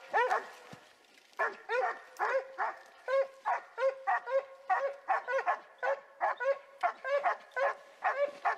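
Boar-hunting dogs barking in a steady run of about three barks a second, after a short break about a second in.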